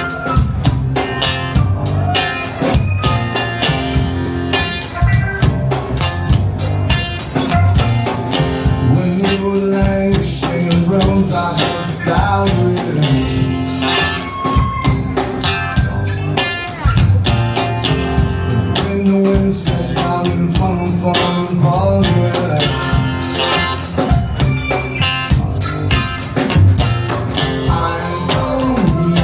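Live rock band playing a song with electric guitar and drum kit, loud and continuous.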